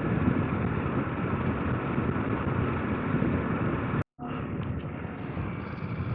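KTM 890 Adventure R's parallel-twin engine running under way on a loose dirt road, mixed with wind and tyre noise. About four seconds in the sound drops out completely for a moment, then comes back a little quieter.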